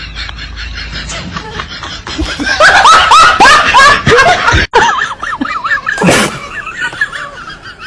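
A person laughing in a quick run of rising-and-falling bursts, loudest in the middle, cut by a brief dropout, then a short rushing noise about six seconds in and softer laughter after it.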